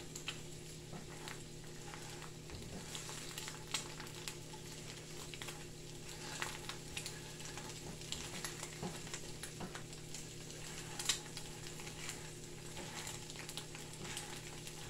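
Eggs frying in oil in a pan on a gas burner: a quiet, steady sizzle with scattered little crackles, stirred now and then with a silicone spatula.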